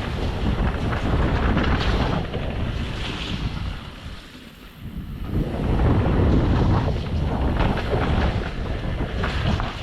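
Wind buffeting the microphone of a mountain bike's on-board camera on a fast descent, with the bike knocking and rattling and the tyres splashing through mud and water. The noise drops away briefly about four and a half seconds in.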